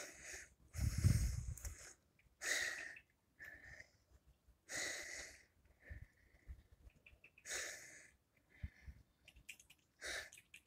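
A person breathing close to the microphone: slow breaths about every two to three seconds, the loudest about a second in with a low rumble under it.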